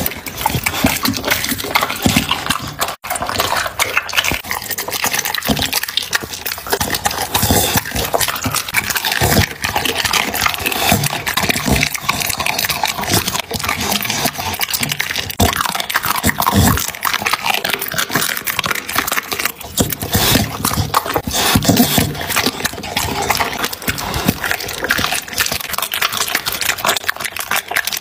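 A dog eating raw chicken and beef: wet smacking and chewing with a steady stream of clicks and crunches. There is a brief break about three seconds in.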